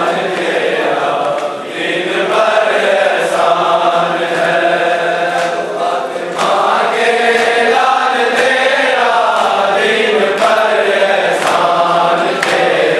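A crowd of men chanting a Muharram noha (mourning lament) in unison, with slaps of hands on chests (matam) about once a second.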